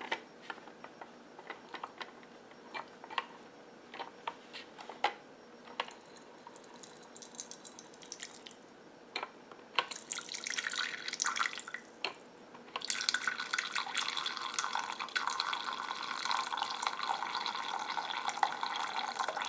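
Birria gravy running out of the bottom release of a gravy separator into a bowl, drawn off from under the fat layer. At first it falls as scattered drips, then it trickles off and on, and from about two-thirds of the way through it pours as a steady stream.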